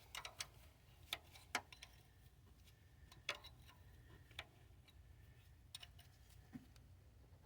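Faint, scattered metallic clicks and taps of hand tools and loose engine parts being handled, at irregular intervals over a quiet background.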